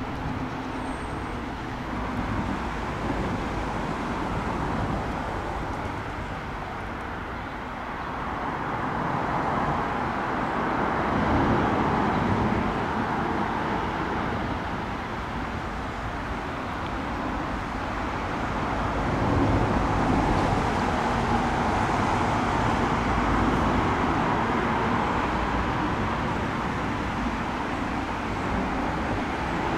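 Vehicle noise: a steady rushing that swells twice, once around the middle and again through the second half, with no clear engine note.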